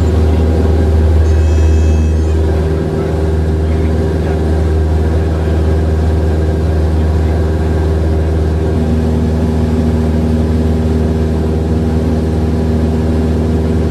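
Cessna 172's piston engine and propeller running at takeoff power, a loud steady drone heard inside the cabin as the plane rolls, lifts off and climbs. A brief thin high tone sounds about a second in, and the drone's pitch shifts slightly about three seconds in.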